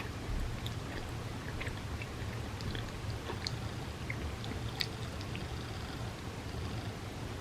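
A person chewing bagel with vegan cream cheese close to the microphone: small scattered mouth clicks over a steady low hum.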